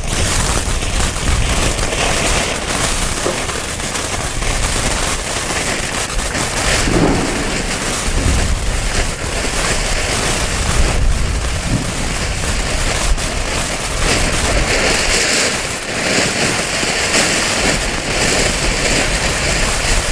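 Small ground fountain firework burning, a steady hissing spray of sparks with occasional pops.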